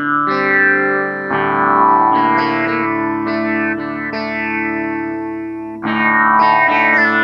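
Line 6 Variax modelling guitar set to its sitar sound, in DADGAD tuning: plucked melody notes over open strings ringing as a drone. A fuller strum comes about a second in and another near the end.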